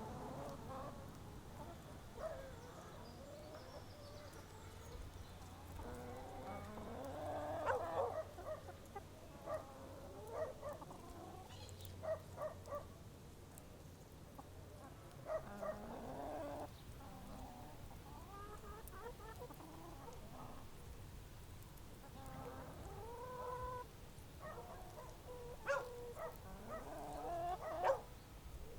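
Chickens clucking on and off in short, repeated calls, over a faint steady low hum.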